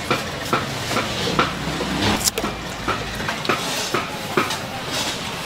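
Busy street-market background: irregular clinks and knocks of handling and utensils, over a low rumble of passing traffic that fades about three seconds in.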